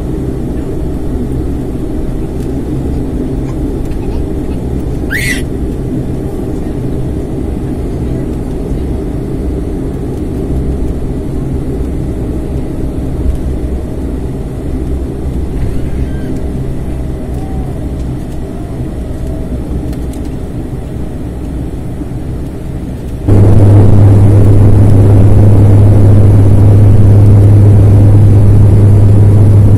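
Turboprop airliner's engines and propellers heard from inside the cabin beside the propeller, a steady drone while taxiing. About three quarters of the way through, the sound jumps suddenly to a much louder steady drone with a strong low hum as the engines are run up to takeoff power.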